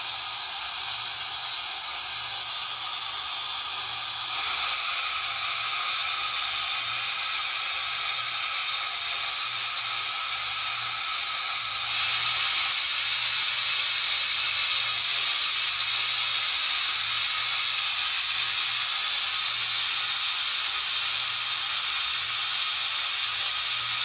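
Athirappilly waterfall in heavy flow, a steady rushing hiss of falling water with no breaks. It steps louder about four seconds in and again near the middle.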